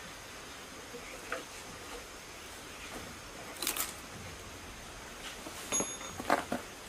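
A few sharp metal clicks and knocks, with some scraping, as the timing gear cover of a single-cylinder diesel engine is worked loose and lifted off. The loudest knocks come near the end.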